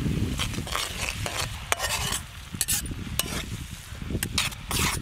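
Wooden spatula stirring and scraping tomato paste and fried onions around a wok in hot, sizzling oil, in a string of irregular strokes.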